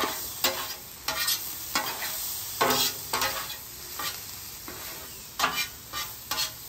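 Metal spatula scraping across a flat-top griddle, pushing and turning diced peppers and onions, in about a dozen short strokes at uneven intervals. Under the strokes the vegetables sizzle steadily in butter.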